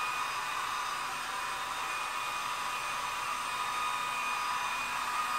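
Handheld hair dryer running steadily on high: an even rush of air with a steady whine in it.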